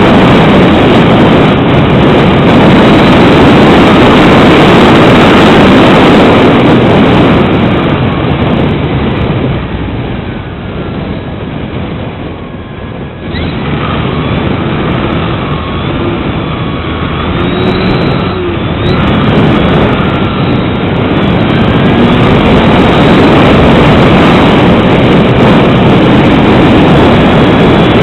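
Strong gusty wind buffeting the microphone. In a lull midway, the faint whine of an electric RC plane's motor rises and falls.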